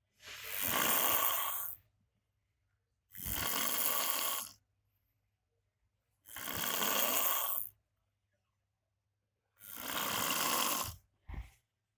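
A man snoring very loudly in his sleep: four long snores about three seconds apart with silence between them, then a brief low snort near the end.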